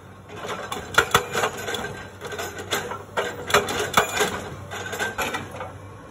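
Hydraulic breaker on an excavator boom hammering rock: a run of sharp, irregular metallic impacts of chisel on stone, with the loudest strikes about a second in and again around four seconds.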